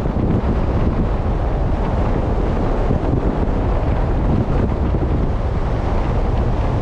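Steady wind buffeting the microphone, with the wash of sea water underneath.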